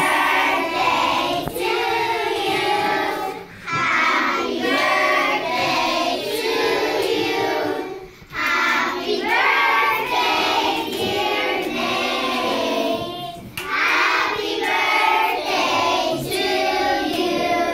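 A class of young children singing a birthday song together in four phrases, with some clapping along.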